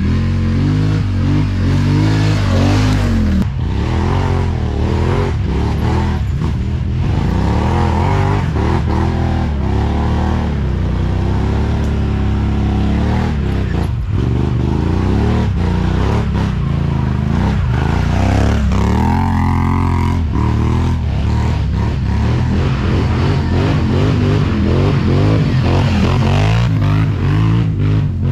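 ATV engine running and revving off-road, its pitch rising and falling continuously as the throttle comes on and off.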